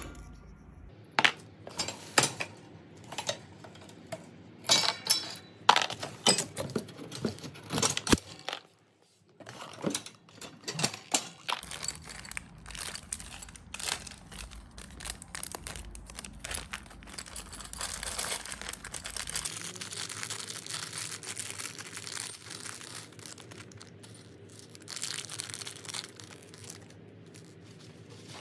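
Handling of drying-rack parts and packaging: sharp clicks and clinks of small metal screws and plastic fittings, mostly in the first half. After that comes a steadier rustling and crinkling of paper or plastic wrapping.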